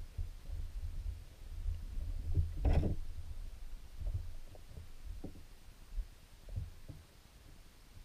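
Muffled low rumble of creek water heard from underwater, with scattered soft knocks and one louder thud nearly three seconds in. The rumble fades somewhat in the second half.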